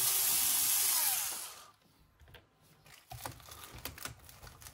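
A small electric motor with an airy rushing hiss runs and then winds down, falling in pitch and fading out about a second and a half in. Faint light clicks and taps follow.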